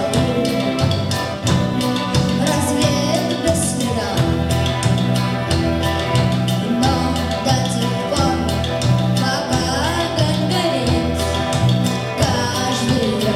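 Band music from a vocal-instrumental ensemble, playing at a steady beat. A bass line repeats in a regular pattern under drum strokes, with a melody gliding above.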